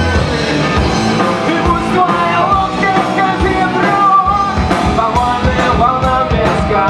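Live rock band playing a song, with regular drum hits under a melodic line.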